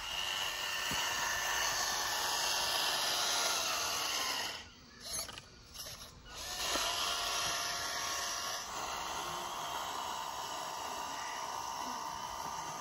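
Small drive motor and gears of a handmade scale-model Massey Ferguson 385 tractor whining steadily while it works through sand, dropping away briefly about five seconds in.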